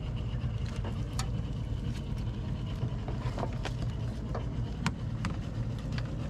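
Steady low rumble with scattered sharp clicks and knocks of a wire-framed mesh crab pot being handled and lifted in an aluminium boat, a mud crab caught inside.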